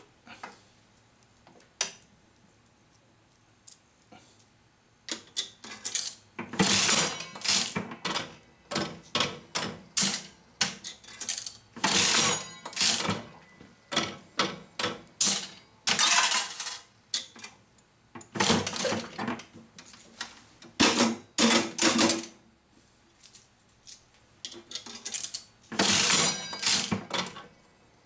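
Aristocrat Elite one-cent mechanical slot machine running with its front open: a few light clicks, then from about five seconds in a run of metallic clattering bursts a second or two apart as the reels spin and clack to a stop.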